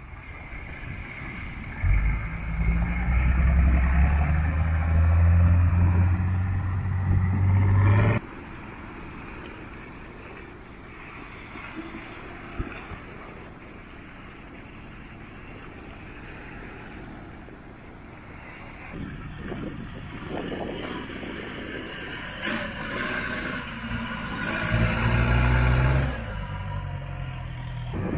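Off-road 4x4 engines running and revving as they wade through a shallow river, with water splashing around the wheels. A loud engine for several seconds stops abruptly early on. After a quieter stretch, splashing and engine sound pick up again in the later part.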